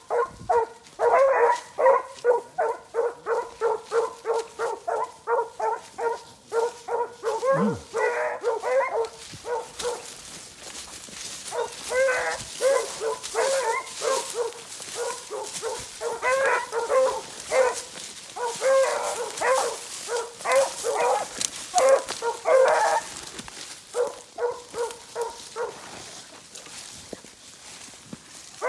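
Beagle hounds giving voice on a track: rapid chopping barks, about three a second at first, then coming in runs with short breaks between them.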